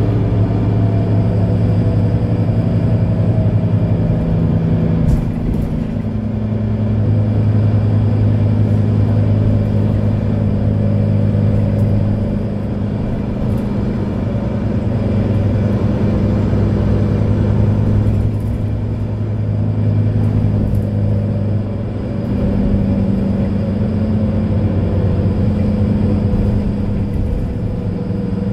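Mercedes-Benz Citaro C2 Ü Hybrid bus's diesel engine idling, a steady, even low hum.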